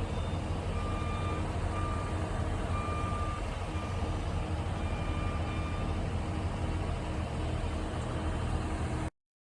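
Backup alarm of a reversing construction vehicle beeping about once a second over a steady low engine rumble. The sound cuts off suddenly near the end.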